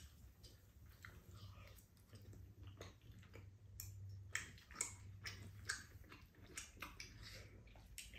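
Faint eating sounds: tteokbokki being chewed, with scattered short clicks of chopsticks and a spoon against bowls, a few sharper ones about four to six seconds in.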